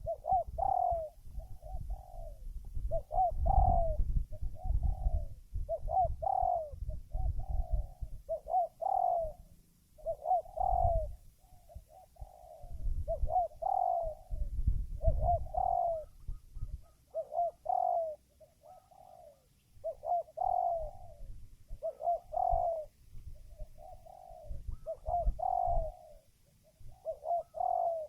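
Spotted dove cooing: a long run of short, repeated coo notes in its phrased song, with a low rumble underneath that comes and goes.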